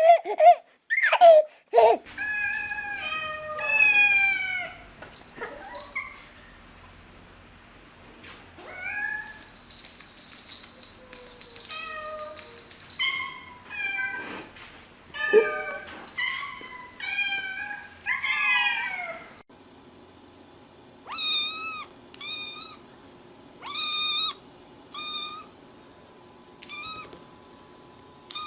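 Cats and kittens meowing, one short call after another in a string of different clips. In the last part, short high-pitched meows come about once a second.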